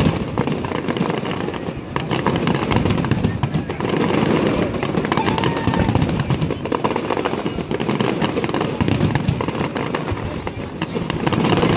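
Fireworks display with shells bursting into dense glittering stars, giving a continuous rapid crackle over a low rumble of detonations.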